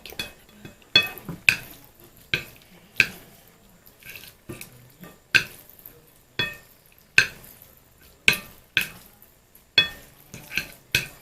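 Cutlery clinking against a dish as instant fried noodles are stirred together with their seasoning: sharp, irregular clinks with a short ring, roughly one or two a second.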